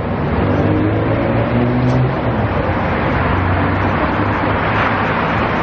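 Steady road traffic noise with a vehicle engine running nearby, its low hum fading after about two seconds.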